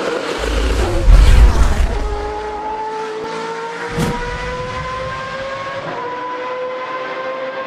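Race car engine audio under intro graphics: a loud rush about a second in, a sharp hit at about four seconds, then one engine note climbing slowly in pitch as the car accelerates.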